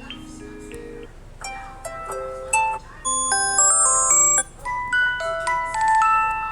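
Samsung Galaxy ringtones and notification tones playing one after another: short electronic melodies of clear, bell-like pitched notes, with a new tune starting about a second, three seconds and four and a half seconds in.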